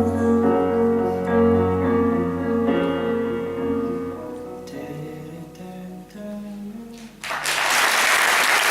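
The last notes of a slow song with held notes fading down, then an audience breaking into applause about seven seconds in.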